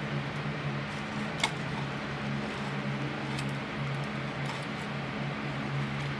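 Light clicks and taps of a clock movement being handled and worked free of its case, the sharpest about a second and a half in, over a steady low hum.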